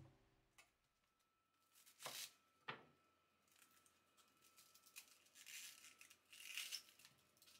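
Faint kitchen handling noises: two light knocks, then soft rustling and crinkling.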